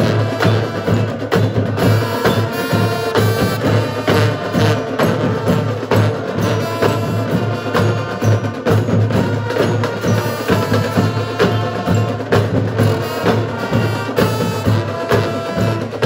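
Marching band playing: a brass section holding sustained chords over a drumline of snare, tenor and bass drums keeping a steady, busy beat.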